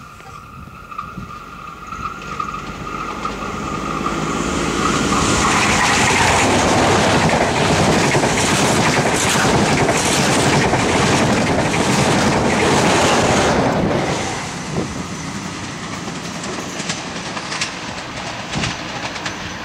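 XPT diesel express passenger train approaching and passing at speed: a horn tone trails off at the start, then the rush of the train builds and is loudest for about nine seconds with rapid clicking of wheels over rail joints, before dropping off suddenly as the train goes by and recedes.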